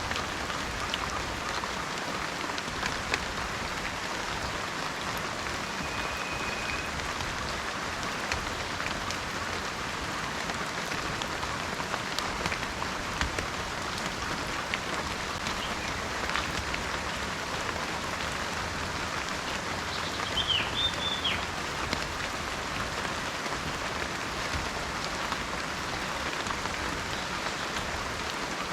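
Steady rain falling in a rainforest, an even hiss with scattered sharp drop taps. A short whistled note sounds about six seconds in, and a bird gives a quick run of chirps about twenty seconds in.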